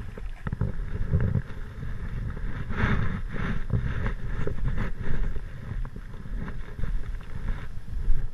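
Wind buffeting a camera microphone in uneven gusts, with scattered rustles and clicks.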